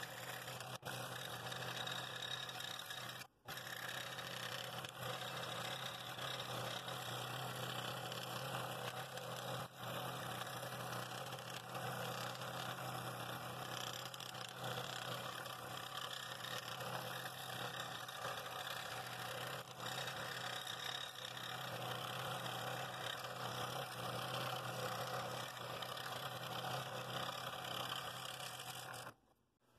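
Scroll saw running and cutting through a walnut bowl ring: a steady motor hum under the rasp of the reciprocating blade in the wood. It drops out briefly about three seconds in and stops just before the end.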